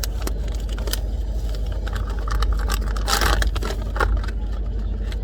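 Toy packaging being handled and opened: scattered plastic clicks and crinkles, with a louder crinkling burst about three seconds in, over a steady low hum.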